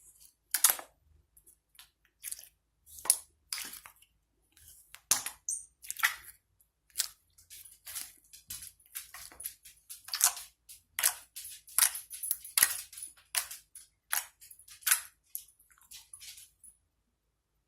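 Homemade slime being poked and pulled by hand, making a string of sharp pops and clicks, irregular, one or two a second, that stop shortly before the end.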